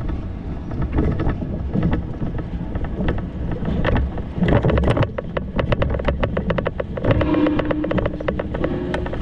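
Low rumble and buffeting of a bicycle ride, with a run of rapid clicks and rattles in the middle and a steady hum near the end that steps up once in pitch.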